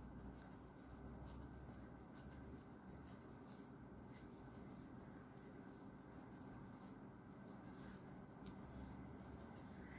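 Faint scratching of a crochet hook drawing yarn through loops as a puff stitch is worked, with scattered light clicks over a low steady hum.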